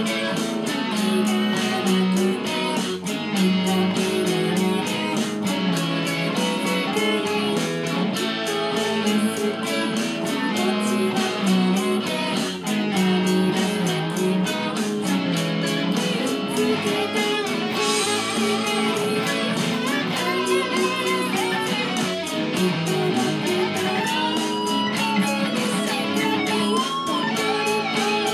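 Fender Stratocaster electric guitar playing a ballad arrangement along with a full-band backing track. Wavering held melody notes come in about two-thirds of the way through.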